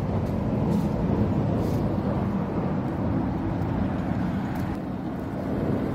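Steady low outdoor rumble with a faint hum running through it.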